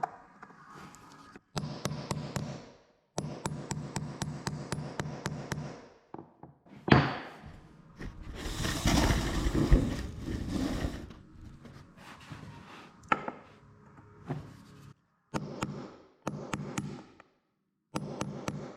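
Hammer tapping a nail set to drive down nails left sticking up out of red oak floorboards, in quick runs of light knocks about four or five a second. About seven seconds in there is one loud knock, followed by a few seconds of louder rushing noise.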